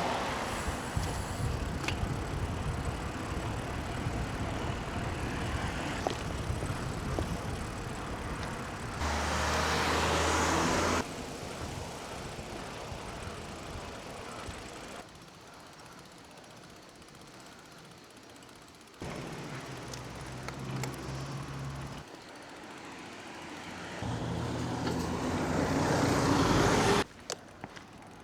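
Road noise from riding along a road, with motor traffic running alongside or passing. The sound changes abruptly several times, from louder stretches with a low engine hum to quieter ones.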